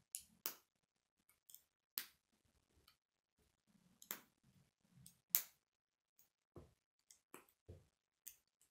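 Sharp plastic clicks at irregular intervals, about a dozen, as K'nex rods and connectors are snapped together; the loudest comes about five seconds in.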